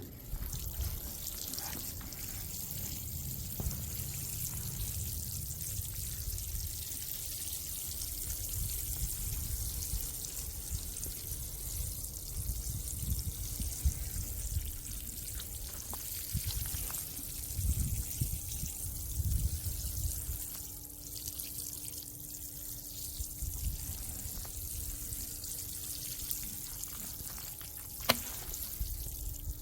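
Water being poured or sprayed onto rock sedum (Orostachys) plants and dry soil, a steady hiss of falling, trickling water.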